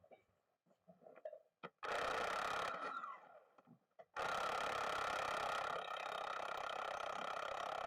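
Impact wrench running on tractor wheel bolts in two bursts: a short one about two seconds in, then a longer run of about four seconds with a steady whine and rapid hammering.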